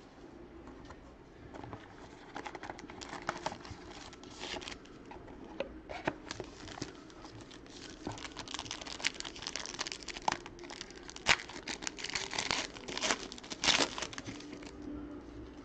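Packaging of a football trading-card box being torn open and crumpled: crinkling wrapper with many sharp crackles and clicks, busier and louder in the second half.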